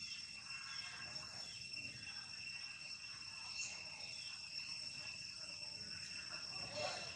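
Steady drone of insects: two unbroken high-pitched tones, with faint scattered small sounds over it.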